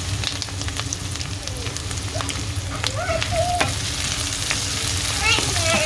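Onions frying in hot olive oil in a pan: a steady sizzle, with scattered short clicks as they are stirred.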